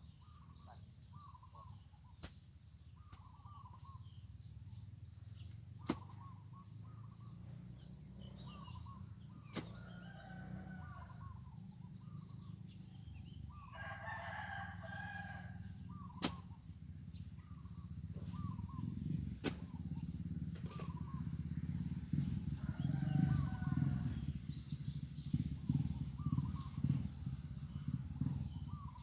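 A rooster crowing, loudest once about halfway through and fainter twice more, over small repeated bird chirps. A few sharp clicks and a low rumbling noise build through the second half.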